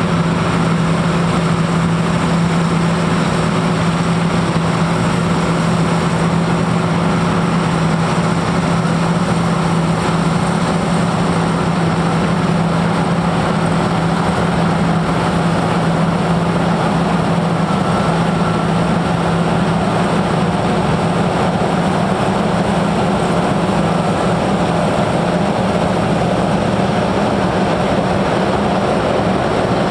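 John Deere T660 combine harvester at work in standing grain, its engine and threshing machinery running with a steady, unbroken hum.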